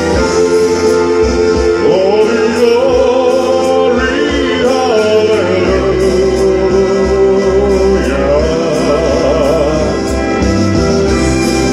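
Man singing into a handheld microphone with vibrato over a gospel-style backing track with choir-like voices and bass.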